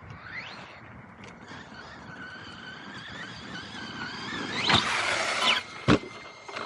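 Electric RC car's brushless motor whining as it speeds up, then a loud scraping rush for about a second and a sharp knock just after.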